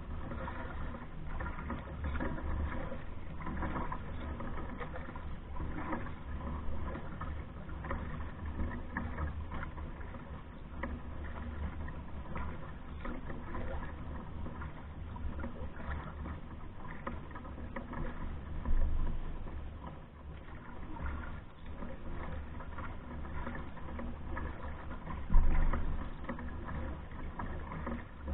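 A pack canoe being paddled across a lake: water swishing and splashing with the paddle strokes against a steady low rumble. Two louder knocks come, one about two-thirds of the way through and one near the end.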